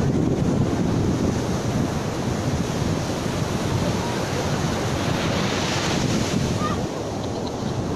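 Rough surf breaking and washing up a beach, a steady rushing roar, with wind buffeting the microphone.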